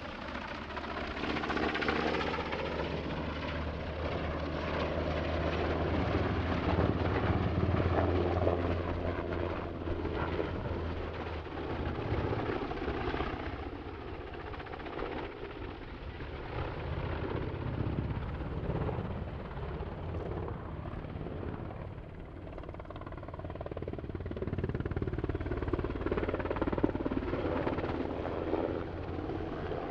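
NH90 twin-engine military helicopter flying a close display: steady rotor and turbine noise that swells and fades as it banks and passes, loudest about a quarter of the way in and again near the end.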